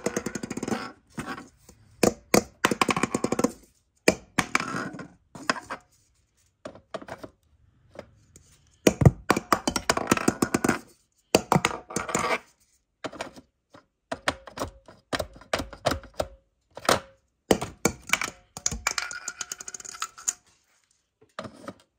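A plastic-domed LED bulb repeatedly dropped and thrown onto a hard floor, clattering and bouncing in quick runs of clicks, about eight times with short pauses in between.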